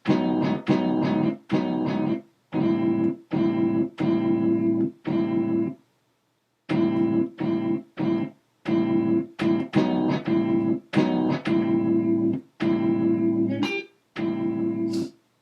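Short chops of a guitar sample triggered over and over in Maschine: the same plucked guitar chord starts and cuts off abruptly each time, about one to two a second, with a second-long silence about six seconds in.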